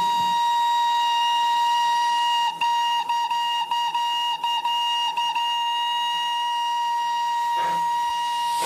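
Steam locomotive whistle on a Darjeeling Himalayan Railway engine, sounding one long steady blast. About two and a half seconds in it breaks into a quick string of short toots, then settles back into a long held blast. It is sounded as the train gets ready to set out.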